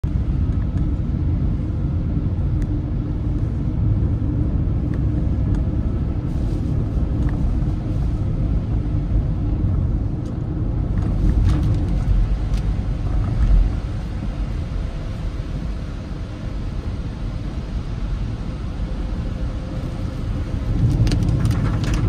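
Steady low rumble of a car's engine and tyres on a rain-soaked road, heard from inside the cabin, with a few faint ticks.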